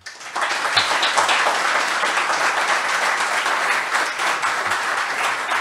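Audience applauding, the clapping building up within the first half-second and then holding steady.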